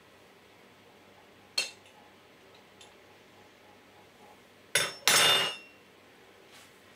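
A spoon clinking against a glass jar of flour as flour is spooned out: a sharp clink about a second and a half in, then a clink and a louder half-second clatter with a ringing tone near the five-second mark.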